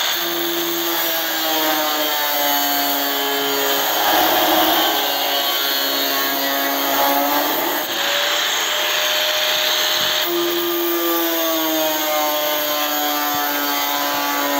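Handheld angle grinder with a thin cut-off disc running and cutting through steel sheet. Its motor whine sags in pitch as the disc bites into the metal and jumps back up a few times, over the hiss of the disc grinding the steel.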